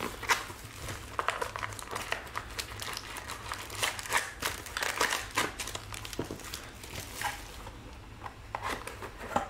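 Foil trading-card pack wrappers crinkling and tearing as packs are ripped open by hand, in many short, irregular rustles.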